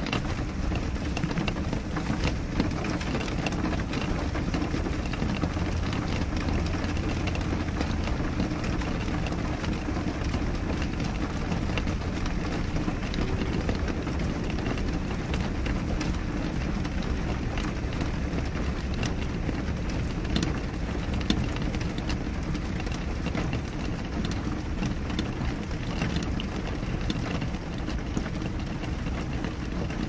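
Steady rain on a window pane: scattered drops ticking on the glass over a low, steady rumble of the downpour.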